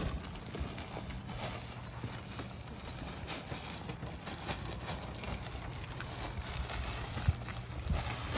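Soil pouring out of a bag onto the ground as the bag is shaken, with rustling and a few sharp knocks.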